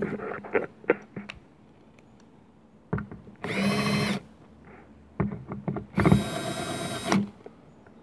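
Bosch 18-volt cordless drill driving bolts into a roof-rail bracket, in two short runs of about a second each, the first about three and a half seconds in and the second at six seconds. Light clicks of tools being handled come in the first second or so.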